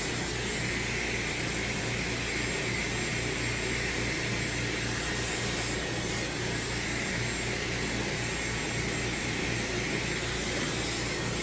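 Dyson hair dryer running steadily: an even rush of blown air with a faint high, steady whine from the motor.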